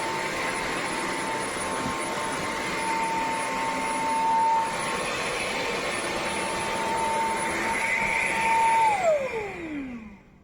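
Wet-dry vacuum cleaner's motor running with a steady whine and rush of airflow. It is switched off about nine seconds in, and its pitch falls as the motor spins down to a stop.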